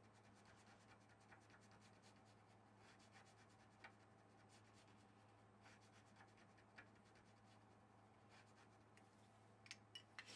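Faint, irregular light scratching of a small hand tool scraping hardened cyanoacrylate (superglue) out of a guitar's fret slot at the fingerboard's binding edge, with a few sharper clicks near the end. A steady low hum lies underneath.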